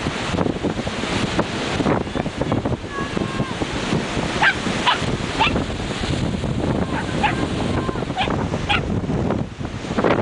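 Shetland sheepdog giving several short, high-pitched barks, mostly in the middle of the stretch, over steady surf and wind noise on the microphone.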